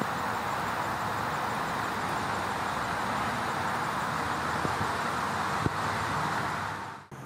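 Steady hiss of light rain falling on foliage, with a couple of faint ticks later on; it cuts off shortly before the end.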